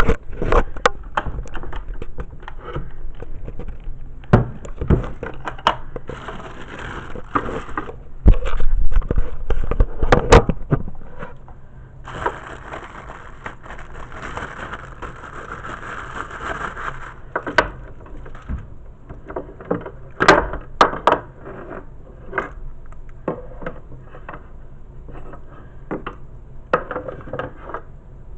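Unboxing handling noise: cardboard and plastic packaging scraping, crackling and rustling, with many sharp knocks and clunks. The heaviest clunks come about eight to eleven seconds in.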